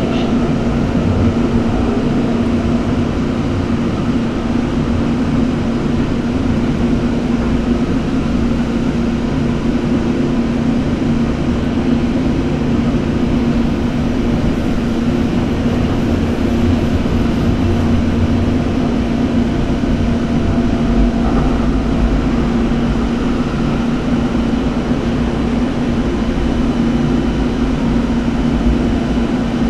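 Siemens SD-160 light rail car running along the track, heard from inside the driver's cab: a steady low hum over continuous wheel-on-rail rumble.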